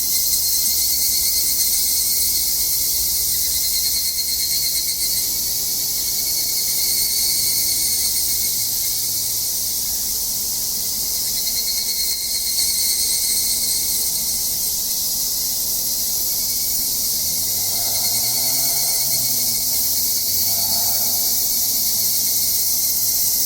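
A chorus of cicadas in a summer mountain forest, a dense, steady, high-pitched drone.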